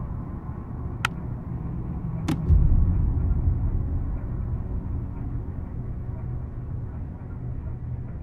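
Two sharp clicks, just over a second apart, from a plastic water bottle being capped and set down on a table, over a low steady rumbling drone that swells just after the second click.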